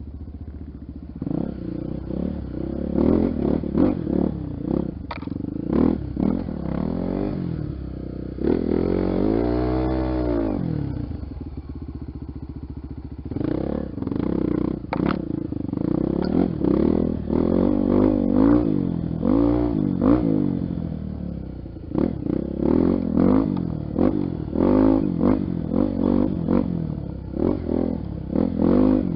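Honda XR 250 Tornado's single-cylinder engine revving up and down again and again on a dirt trail, with one long rise and fall about a third of the way in. The bike clatters and knocks over the rough ground throughout.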